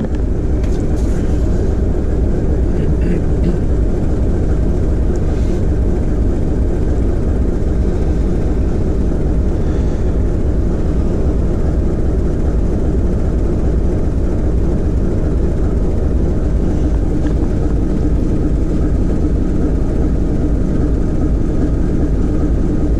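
Diesel engine of a TEM2UM shunting locomotive running steadily under load during post-repair load testing, heard from inside the cab as a constant low rumble.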